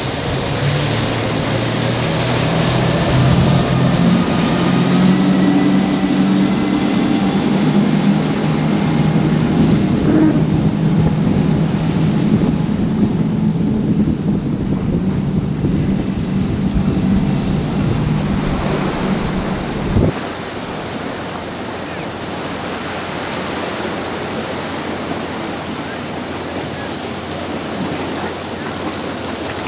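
Motorboat engines running with a steady hum over wind and surf. About twenty seconds in, the engine sound cuts off abruptly, leaving only surf and wind on the microphone.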